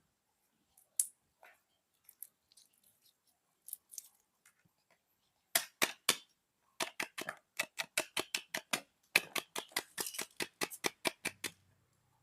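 Crisp, sharp clicks from slime being worked with the hands: a few scattered ones at first, then a fast run of about five a second through the second half.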